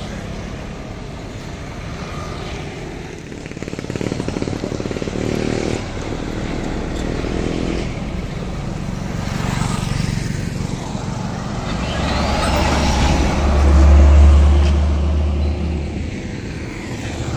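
Road traffic passing close by: motorcycles and a light truck going past, with the loudest, deepest rumble of a passing vehicle near the end.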